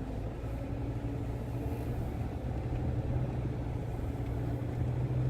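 Vehicle driving along, heard from inside the cabin: a steady low engine and road drone that slowly grows louder.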